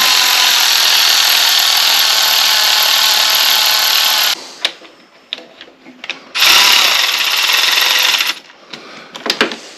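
Handheld power tool running the cylinder head bolts down on a Kawasaki Lakota engine. It runs steadily for about four seconds, stops, then runs again for about two seconds past the middle, with a few small clicks between and near the end.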